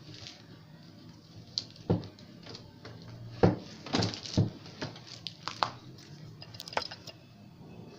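A series of irregular sharp clicks and knocks over a quiet background, the loudest about three and a half seconds in.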